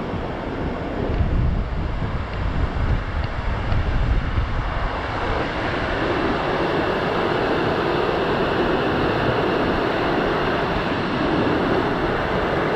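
Wind buffeting the microphone in low gusts. About five seconds in it gives way to a steady, even rushing noise.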